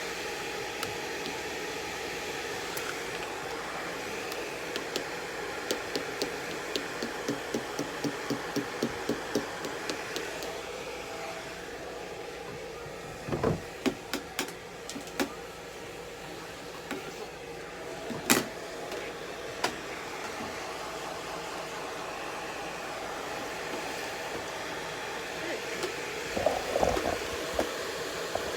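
A hair dryer blowing steadily. Over it come a run of quick, even clicks at about two or three a second, then several louder knocks and a sharp click, and a short cluster of knocks near the end.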